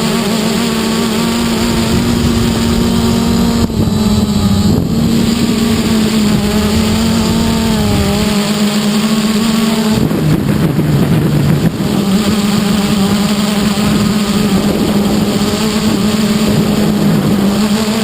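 A 330-size quadcopter's electric motors and propellers are buzzing close to the on-board camera, the pitch wavering as the throttle changes and dipping lower for a couple of seconds about ten seconds in. Wind noise is mixed in on the microphone.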